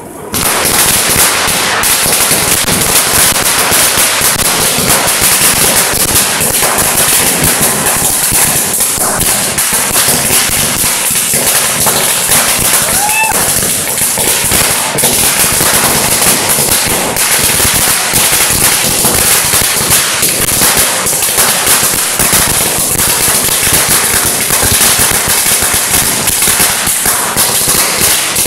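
Firecrackers going off on the road in one long, rapid, unbroken run of sharp bangs that starts suddenly about half a second in and does not let up.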